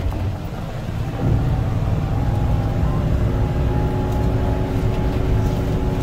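Steady low rumble of a vehicle's engine and road noise while driving, with a dip in level about a second in.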